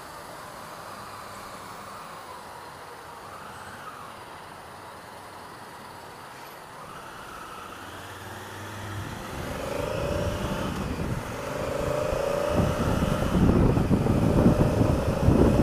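Honda Africa Twin CRF1000L motorcycle riding in traffic, quiet at first. From about nine seconds in, the bike accelerates and engine and wind noise rise steadily, with wind rumbling on the helmet-mounted microphone toward the end.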